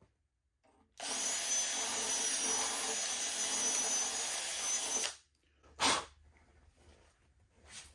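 Cordless drill running steadily for about four seconds, reaming out a rivet hole in a vending machine's coin door, then a single sharp knock about a second after it stops.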